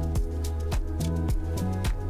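Background music with a steady beat and a sustained bass line.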